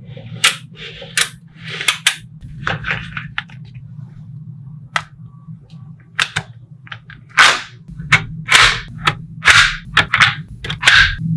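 Small magnetic balls snapping together with sharp clicks, at an irregular pace and denser and louder in the second half, over a steady low hum.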